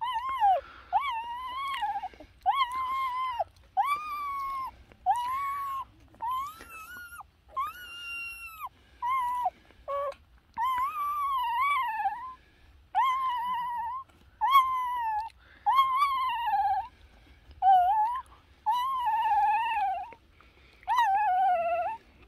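Newborn Doberman puppies crying: a run of high whining cries, each under a second long, that rise and fall in pitch and come one after another with only short gaps.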